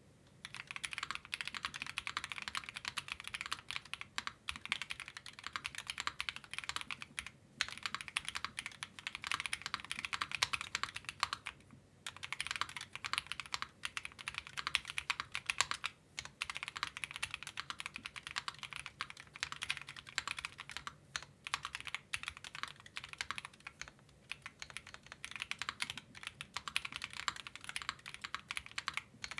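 Typing test on a mechanical keyboard, an e-white Suit board fitted with GMK Minimal keycaps. It gives a fast, continuous stream of keystroke clacks, starting about a second in and broken by short pauses every few seconds.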